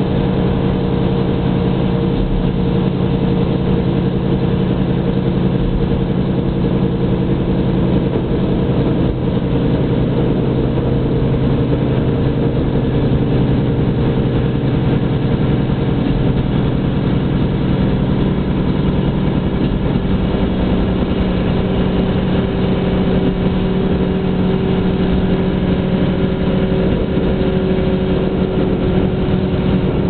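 Heard from inside a diesel train carriage: the diesel engine runs steadily under way, mixed with the rumble of the wheels on the rails. The engine note holds steady and dips slightly in pitch a little past the middle.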